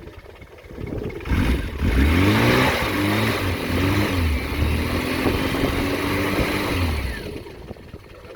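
Classic Mini engine revved several times, its pitch climbing and falling with each blip, then dropping back to a low level near the end.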